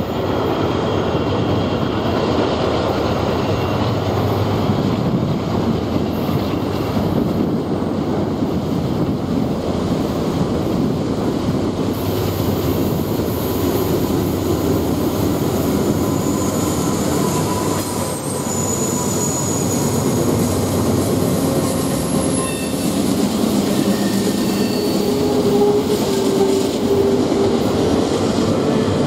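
Freight train rolling past on a tight curve: a steady rumble of the cars with steel wheels squealing against the rails in thin high tones that come and go, more often in the second half.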